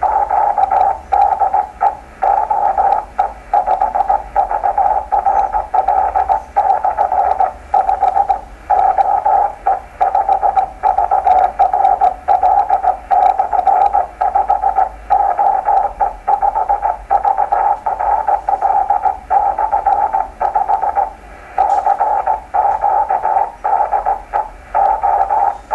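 A 10 GHz rain scatter signal received in USB on a Yaesu transceiver's speaker. It is a rough, hissing buzz around 800 Hz rather than a clean tone, broken by short gaps every second or so. The smeared, hissy quality is the Doppler spread that scattering off falling rain puts on the signal.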